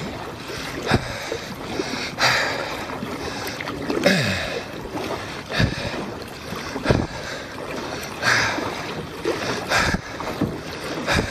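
Kayak paddle strokes: the blades of a double-bladed paddle dipping and pulling through lake water in a steady rhythm about every second and a half, each stroke a splashing wash.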